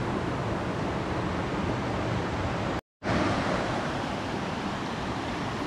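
Mountain river rushing over rocks, a steady rush of water. It cuts off briefly about three seconds in and resumes slightly louder.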